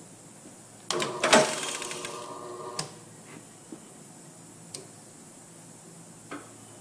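Metal clatter at a brake-shoe riveting machine. About a second in come a few sharp knocks and a ringing metallic rattle that fades over about a second and a half. A single click follows, then a few light metal clicks.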